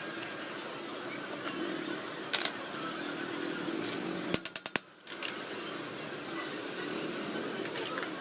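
Ratchet wrench clicking in a quick run about four and a half seconds in, with a few scattered metal clicks of tools on motorcycle engine parts during assembly, over a steady background hum.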